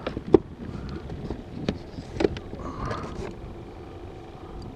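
A few sharp knocks and clunks on the fishing kayak, the loudest about a third of a second in, as the rod, reel and gear are handled, over steady wind and water noise.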